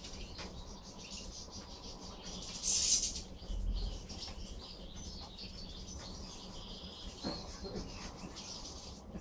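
A flock of European goldfinches twittering and chirping while feeding, with a louder burst about three seconds in.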